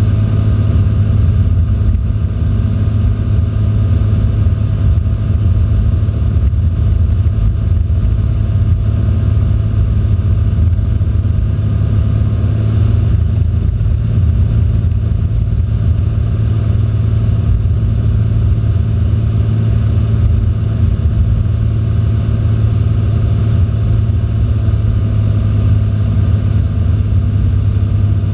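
Cessna 172's single piston engine and propeller running steadily in flight, heard from inside the cockpit as a loud, even low drone that does not change.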